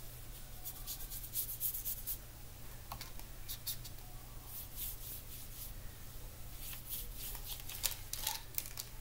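Watercolour brush stroking across paper: soft, scratchy swishes in short runs, with a steady low hum underneath.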